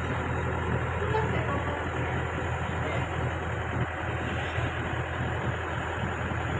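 Heavy diesel engine running steadily with a low, even hum, typical of a backhoe or truck ticking over during loading.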